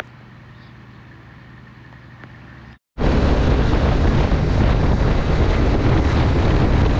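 A quiet, steady low hum. Then, after a sudden cut, loud wind rushing over the microphone of a motorcycle at highway speed, with the BMW G 310 GS's engine underneath.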